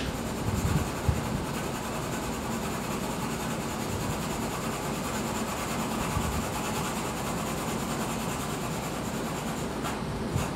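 Graphite pencil shading and blending on watercolor paper: a steady rubbing with a faint low hum underneath.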